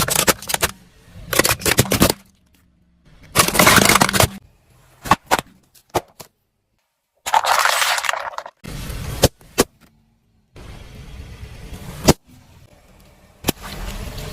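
Objects cracking and crunching under a car's tyres, heard as a series of short clips that start and stop abruptly, with tyre rumble between them and a sharp snap about 12 seconds in.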